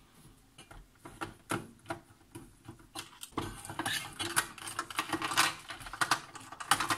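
Small clicks of a screwdriver working screws out of the Tascam 424 Mk II's circuit boards. About three seconds in, this gives way to a denser clatter of the boards and their plastic and metal parts being lifted out and handled.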